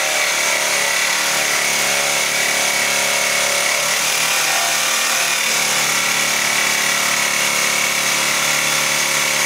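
Electric jigsaw running steadily with a constant motor whine, its blade cutting through a wooden 2x4.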